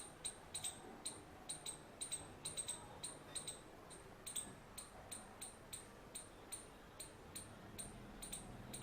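Indian palm squirrel chirping: short, sharp, high-pitched chips repeated about three times a second, some coming in quick pairs.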